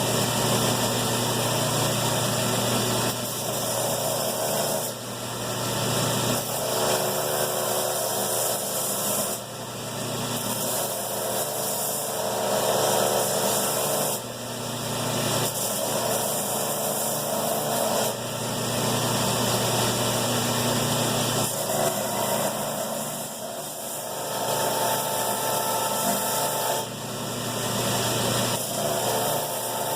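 Belt grinder running with a steel sword blade pressed into the belt over a contact wheel, grinding a fuller down the centre: a steady motor hum under a hissing grind that swells and drops as the blade is pressed and eased off, changing abruptly every few seconds.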